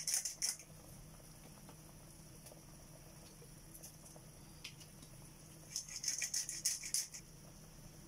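Glass noodles cooking in bubbling soy-sauce liquid in a wok, heard as quick wet crackling. The crackling comes in two short bursts, one at the start and one around six seconds in, over a faint low hum.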